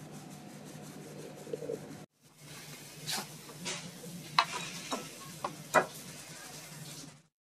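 Stainless-steel mesh sieve being shaken and tapped over a glass bowl to sift tapioca flour, with a soft rustle of powder through the mesh. After a break about two seconds in, a run of about six sharp clinks and taps as the sieve knocks against the bowl, over a steady low hum.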